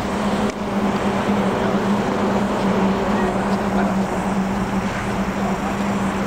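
Steady outdoor background noise with a constant low hum, and a single short knock about half a second in.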